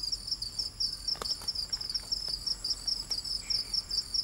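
Night chorus of crickets: a fast, even chirping, about five pulses a second, over a steadier high trill. A few faint clicks sound through it.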